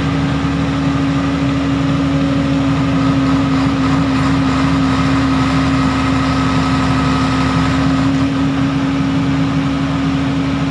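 Mitsubishi 125 kVA diesel generator set running at a steady speed, with an even engine drone and a strong steady hum.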